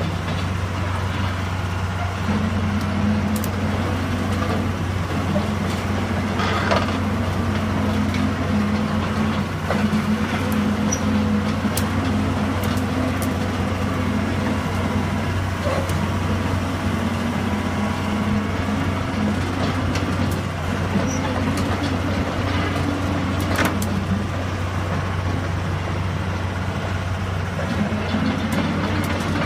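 Komatsu PC200 hydraulic excavator's diesel engine running steadily, with a couple of sharp knocks, about seven seconds in and again near the end.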